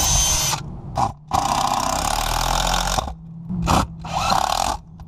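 Power drill driving screws into wood in several bursts, stopping and starting, as a backer board is screwed up behind the fascia joint.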